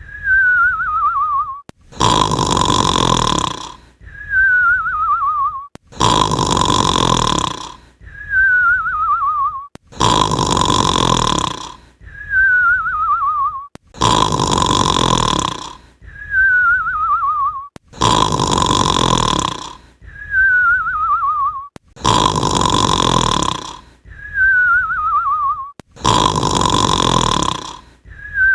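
Snoring effect machine playing a looped cartoon snore. A loud snore on the in-breath is followed by a warbling whistle that falls in pitch on the out-breath, and the pair repeats the same way about every four seconds.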